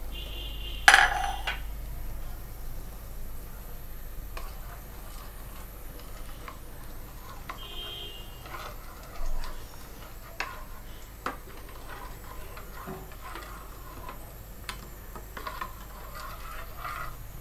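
Metal spoon clinking and scraping against steel pots and bowls while spice paste is mixed with water. There is a loud ringing clang about a second in, a second ringing clink near eight seconds, and scattered light knocks in between.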